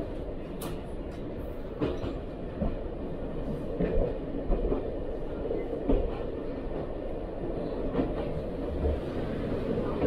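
Passenger train running, heard from inside the carriage: a steady rumble with a sharp wheel click over the rail joints every second or two, at uneven intervals.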